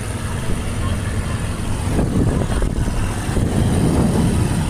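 Motorized fishing boat's engine running steadily while the boat is under way, mixed with rough rushing noise of wind and water, a little louder from about two seconds in.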